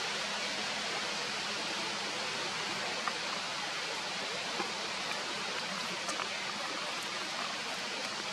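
Steady, even rushing background noise with a few faint clicks.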